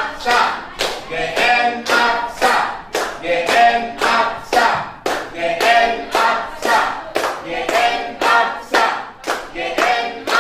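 A small group singing together while clapping their hands in a steady rhythm, about two claps a second.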